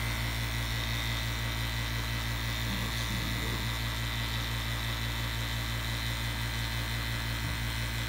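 CPS VPC2SU single-stage 115-volt HVAC vacuum pump running steadily, a constant motor hum with hiss, while it pulls a deep vacuum under 500 microns.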